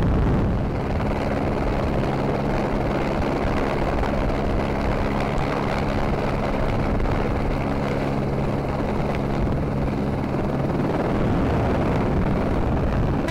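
Helicopter cabin noise: a steady drone from the engine and rotor, with a constant low hum that holds one pitch throughout.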